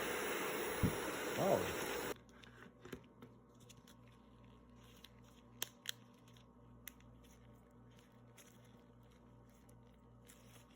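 Hairdryer blowing with a steady hiss, switched off about two seconds in. Then quiet clicks and crinkles as the heated, stuck-together (bricked) baseball cards are handled and pried apart.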